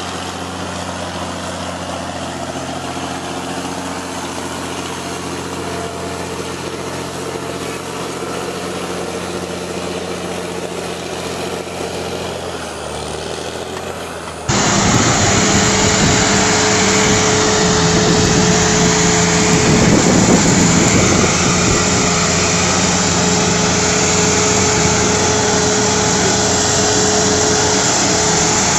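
Diesel engine of a tracked tractor running steadily under load while pulling a trencher through soil. About halfway through, an abrupt cut brings a louder recording of heavy tractor engines labouring, with a steady whine over the engine noise.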